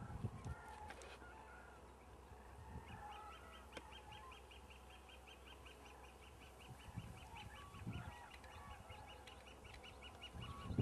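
Whooping cranes calling faintly as the flock flies off, a scatter of short calls in the first few seconds. From about three seconds in, a faint, rapid trill of even pulses, about five a second, runs on until near the end.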